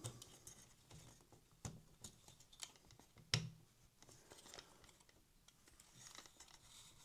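Mostly near silence, broken by a few faint clicks and taps of small parts being handled, the most distinct about three seconds in.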